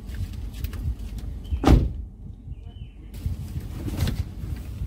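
A person shifting around in a car seat and handling a cardboard parcel: rustles and knocks, with one louder thump about a second and a half in. A low steady rumble runs underneath.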